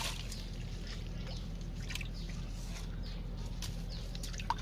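Shallow ditch water sloshing and lightly splashing as a woven bamboo fish trap is pressed into it, with scattered small clicks and one sharper knock near the end, over a steady low rumble.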